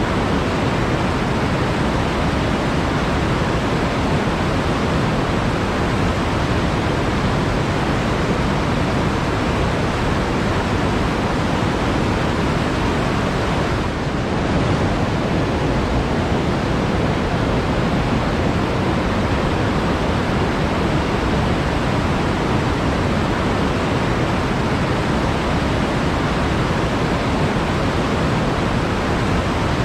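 Flowing water rushing steadily and evenly, with a brief slight dip in level about halfway through.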